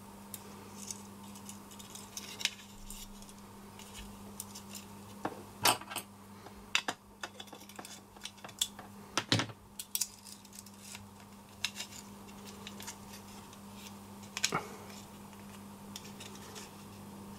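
Scattered small clicks and clinks of an H0 model locomotive's parts and wires being handled, with two louder clacks about six and nine seconds in.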